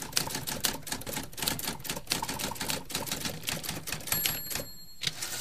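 Typewriter sound effect: rapid mechanical key clicks typing along as text appears, with a brief high bell-like ring about four seconds in.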